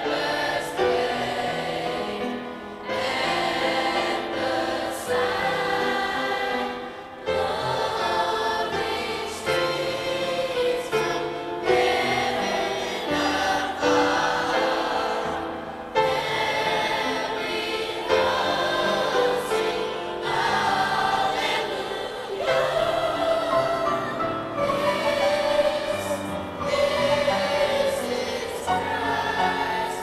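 Middle school choir singing a piece in several voice parts, accompanied on upright piano, in continuous phrases with new entries about 3, 7 and 16 seconds in.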